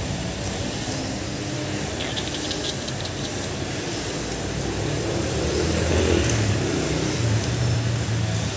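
Low, steady hum of a motor vehicle engine running, swelling for a few seconds after about five seconds in.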